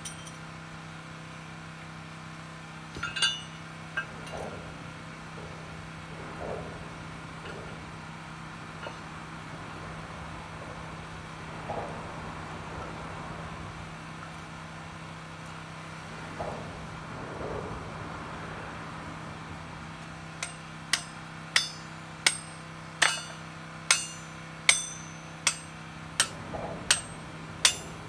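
A short-handled sledgehammer striking steel bolts on a steel plate: a run of about a dozen sharp, ringing blows, about one and a half a second, starting about two-thirds of the way in. Before that, a few light metallic clinks of tools.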